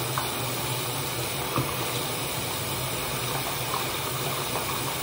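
Steady rush of running water, as from a tap running into a bathroom sink.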